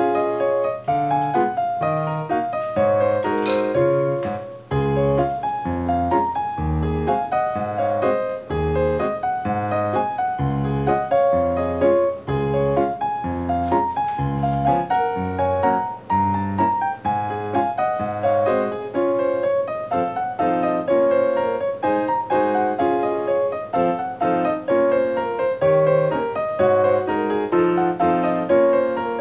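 Background piano music: a steady run of notes over a moving bass line.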